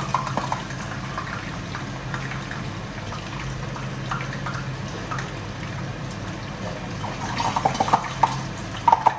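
Pot of jollof rice simmering and bubbling softly on the hob over a steady low hum, with a few short handling sounds near the end.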